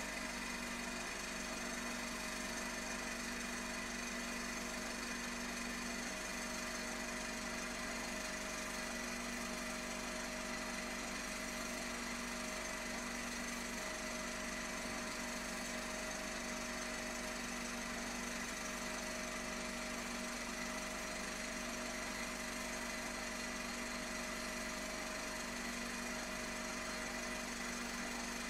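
A 16mm film projector running steadily: an even mechanical whir and rattle over a constant hum.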